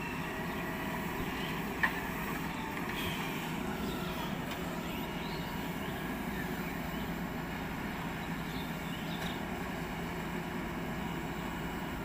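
JCB 4DX backhoe loader's diesel engine running steadily under working load as the backhoe arm digs and swings. A single sharp click is heard about two seconds in.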